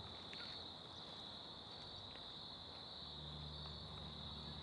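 Faint, steady chorus of crickets, one unbroken high trill. A low steady hum comes in about three seconds in.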